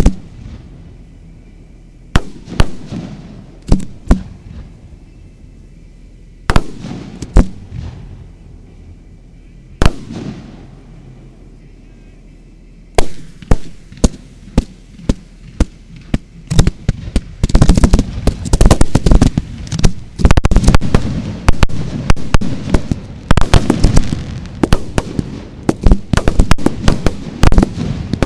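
Fireworks firing from ground tubes: scattered single sharp bangs at first, then from about halfway through a rapid barrage of bangs that becomes nearly continuous toward the end.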